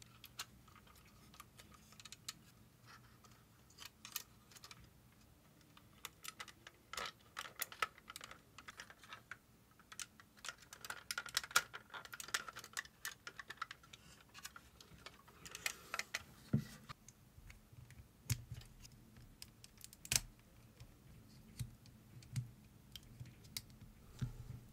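Small clicks and light clatter of an action figure's plastic and die-cast parts being handled and snapped together, scattered and irregular, with clusters of quick clicks and one sharper snap about twenty seconds in.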